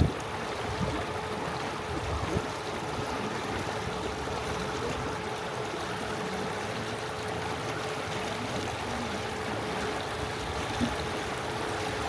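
Tour boat under way on a river: water rushing and splashing along the hull, with a steady mid-pitched hum from the boat's motor.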